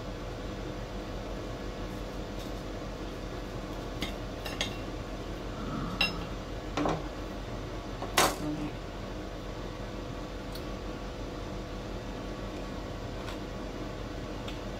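Kitchen utensils and dishes clinking and knocking a handful of times, the loudest clink about eight seconds in, over a steady low hum; the last few seconds hold only the hum.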